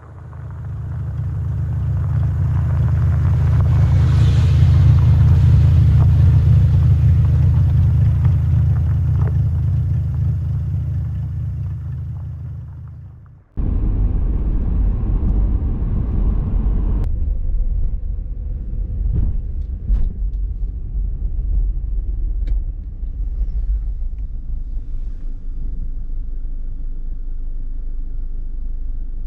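A small SUV driving up a gravel road and passing the camera, its engine and tyres rumbling loudest about five seconds in, then fading away. After a sudden cut comes the steady road noise of a car driving, heard from inside the cabin.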